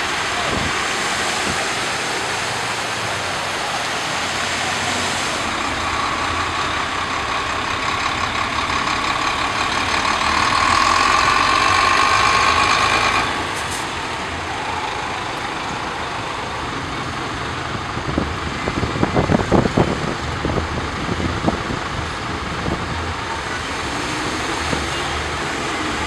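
Traffic driving through a flooded street: engines running and tyres splashing through standing water. A steady whine grows louder and cuts off about thirteen seconds in, and a run of knocks and rattles comes a few seconds later.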